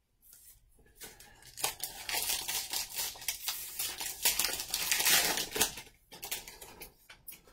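A trading-card pack's wrapper being torn open and crinkled: a dense crackling rustle that starts about a second in and trails off into a few smaller rustles near the end.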